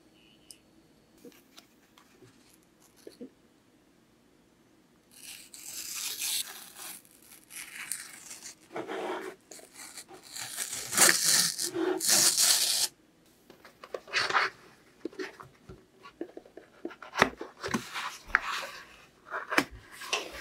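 Corrugated cardboard shipping box being torn open along its tear strip: after a few quiet seconds, a run of ripping sounds that is loudest about eleven to thirteen seconds in, then scattered taps and rustles as the cardboard is handled.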